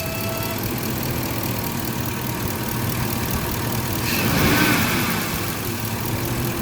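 Ford 5.4L V8 idling, with a steady horn-like tone that sounds for about the first half second and then drops out. About four seconds in, the sound swells briefly. The horn noise persists after a new idle air control valve, so the old valve was not its cause.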